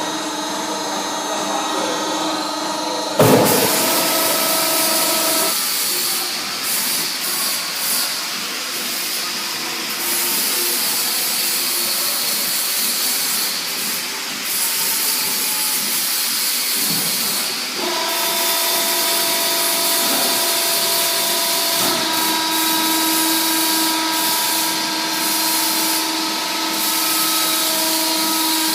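Hydraulic baling press running: a steady motor and pump hum with a whine over a noisy rush, a sudden loud clunk about three seconds in, and the pitch of the hum changing about five seconds in and again near eighteen seconds as the press works.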